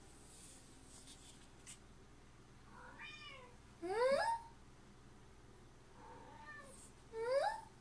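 Domestic cat meowing repeatedly: two loud meows that rise in pitch, about three seconds apart, each preceded by a softer call.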